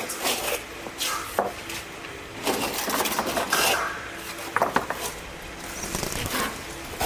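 Hard objects knocking and scraping against each other in a run of short, irregular scrapes and clinks.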